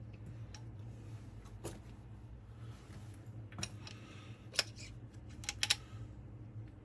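Light metal clicks and clinks from a rocker arm being handled and lifted off its rocker shaft on an A-series cylinder head: a few scattered ticks, one sharper clink about four and a half seconds in and a quick double click just after.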